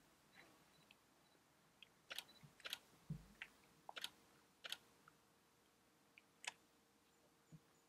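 Faint, irregular sharp clicks and ticks, about half a dozen, clustered between two and five seconds in with one more later, and a soft low thump about three seconds in.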